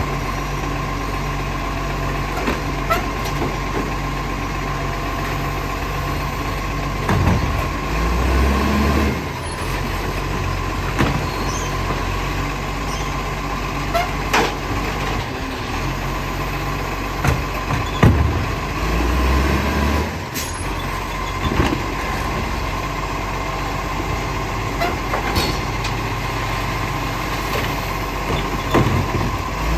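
Iveco side-loader garbage truck's diesel engine idling steadily while its hydraulic arm lifts and tips wheelie bins; about three times the engine note swells as the hydraulics work the arm, with sharp clanks and knocks of bins being handled.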